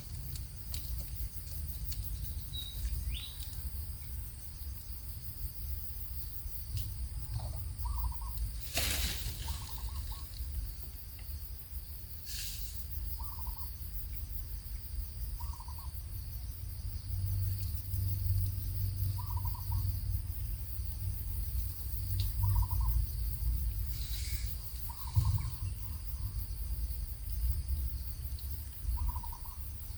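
A bird giving short, soft hooting notes every second or two, over a steady high drone of insects and a low rumble, with a few brief clicks.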